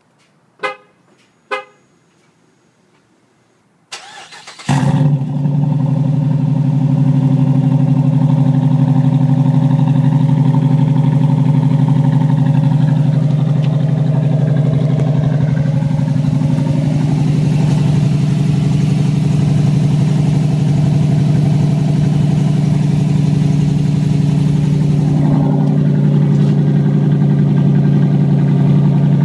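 2007 Jeep Grand Cherokee WK's Hemi V8 starting about four and a half seconds in, then idling steadily. It is heard at the tailpipe through a MagnaFlow 14-inch straight-through muffler with the resonator deleted. Two short chirps come before the start.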